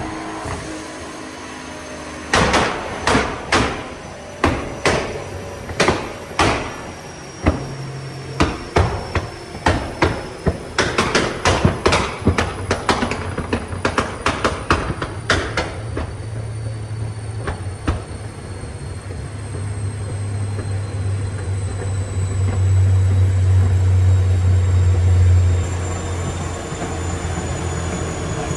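Nissan GT-R R35's twin-turbo V6 exhaust banging and popping in a long irregular string of sharp cracks that come faster towards the middle. The bangs then stop and give way to a steady low engine drone that swells and eases off near the end.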